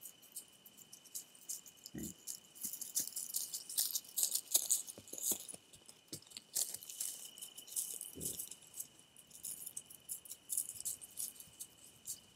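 An animal pressed up against a trail camera, its fur brushing and scraping over the housing and microphone. The rubbing gives dense scratchy rustling and clicks, with a dull thud about two seconds in and another about eight seconds in.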